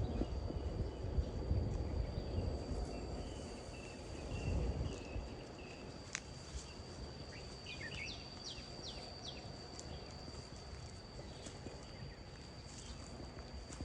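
Outdoor lakeside ambience: a steady high insect drone with birds calling, including a run of about five quick falling chirps around eight to nine seconds in. A low rumble fills the first few seconds and then fades.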